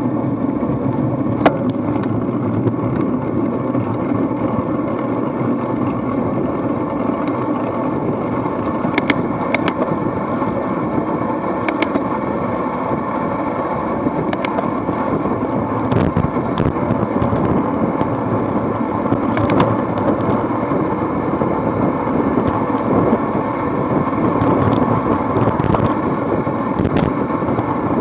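Wind rushing over a bike-mounted camera's microphone, mixed with road-bike tyre noise, as a racing cyclist picks up speed to well over 30 mph. It grows a little louder near the end, with a few scattered sharp clicks.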